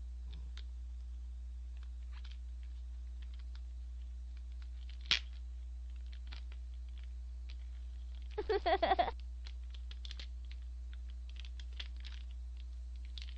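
Plastic takeout packaging and a small plastic tteokbokki cutter being handled up close: scattered light clicks and taps, one sharper click about five seconds in, and a short burst of crinkling plastic a little past eight seconds.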